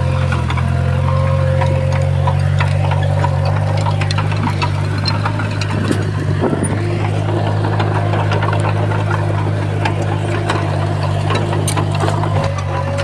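Heavy earthmoving machine's engine running steadily at a low drone, with scattered short clanks over it.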